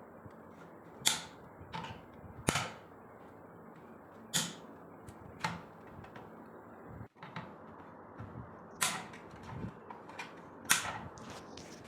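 Excess cable-tie tails being snipped off, giving sharp irregular snaps, about six loud ones with fainter clicks between.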